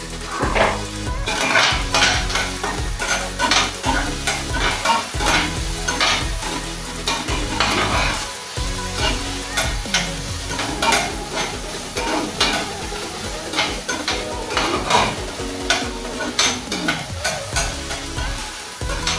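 A metal spoon stirring vegetables frying in a stainless steel pan, with repeated scrapes and clinks against the pan over a steady sizzle.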